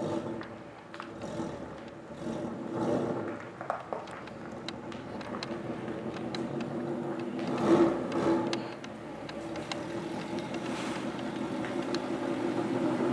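2011 Ford Mustang GT's 5.0-litre Coyote V8 idling as the car reverses slowly, its note swelling briefly twice.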